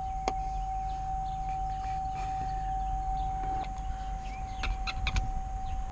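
A steady electronic tone held at one pitch over a low hum, with a sharp click just after the start and a few quick light clicks near the end.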